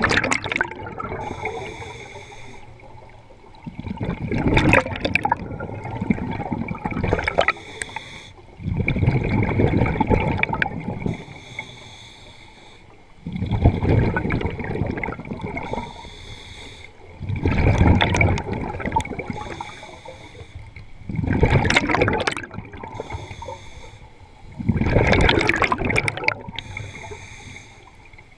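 Scuba diver breathing through a regulator: a gush of gurgling exhaust bubbles about every four seconds, with a quieter hiss of the inhalation between breaths.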